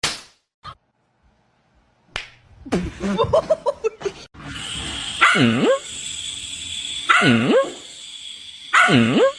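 A dog gives a quick run of short yelps, then three loud barking calls about every second and a half to two seconds, each one dipping and then rising in pitch, over a steady hiss.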